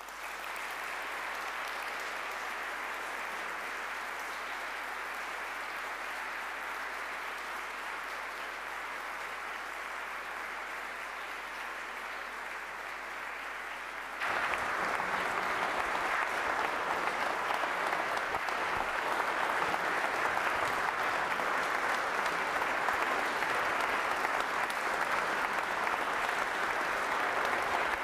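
A large audience in a hall applauding steadily, the clapping suddenly louder about halfway through.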